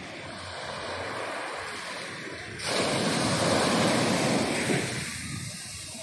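Ocean surf washing onto the beach. The sound grows suddenly louder about two and a half seconds in as a wave breaks and foams up the shore, then eases off near the end.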